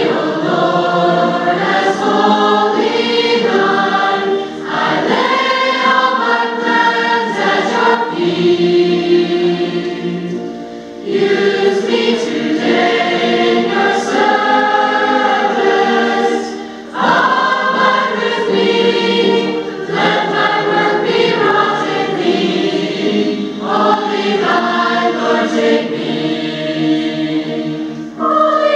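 Mixed choir of men's and women's voices singing a hymn in sustained phrases, with brief breaks between phrases about every five or six seconds.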